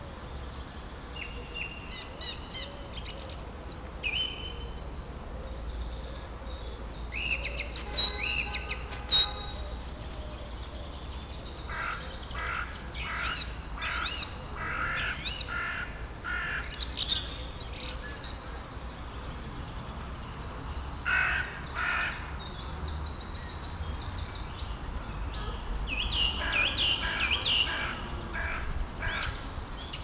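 Several wild birds singing and chirping in short, gliding calls, with denser bursts of calling several times over a steady low rumble.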